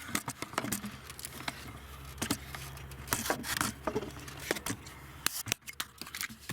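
Handling noise: irregular clicks, light knocks and scrapes as things are moved about by hand, over a faint steady low hum.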